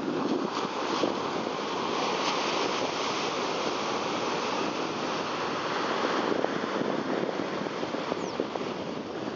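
Ocean surf washing onto a beach: a steady rushing noise.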